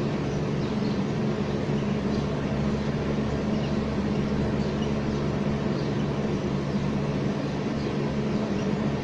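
Felt-tip marker writing on a whiteboard, faint short strokes over a steady low hum with no change in level.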